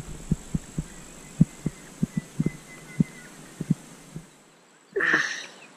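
Small waves slapping against the hull of an anchored boat: irregular low thumps, about two a second, that die away after about four seconds. A brief rustling noise follows about five seconds in.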